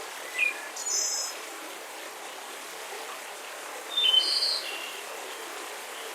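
Songbirds chirping in two short bursts of high notes, about half a second in and again around four seconds in, over a steady breezy hiss of forest ambience.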